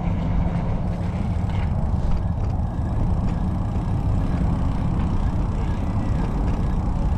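Steady low rumble of wind buffeting the microphone while riding a bicycle.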